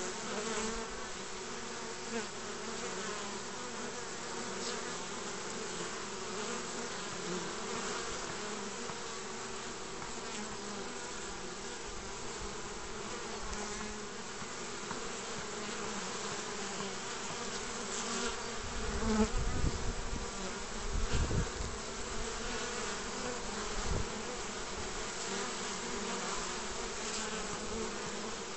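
Honeybees buzzing steadily at the entrance of a straw skep hive as they fly in and out. Brief low rumbles come about two-thirds of the way in.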